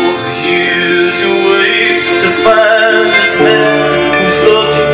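Live instrumental passage of a ballad: harp being played, with a sustained, wavering melodic line gliding above it.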